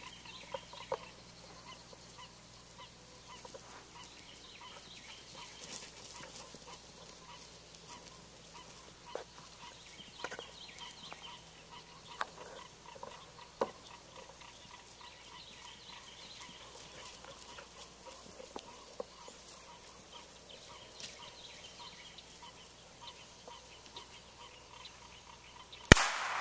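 Faint outdoor background with scattered short, sharp sounds and bird calls. Near the end comes a single loud bang with a trailing echo: a blank pistol shot fired for a steady-to-shot drill with English springer spaniels.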